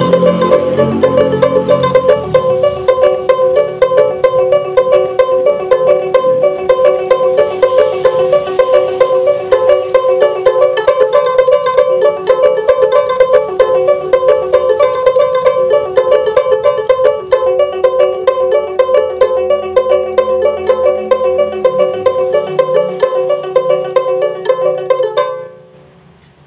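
Sumbanese juk, a small carved wooden plucked lute, played in a fast, steady repeating pattern of plucked notes. Lower notes sound underneath at first, and the playing stops near the end.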